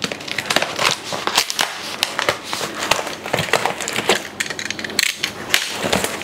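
Box-cutter knife slicing through packing tape on a cardboard box, with dense crackling and crinkling of the tape and cardboard; near the end a box flap is pulled open.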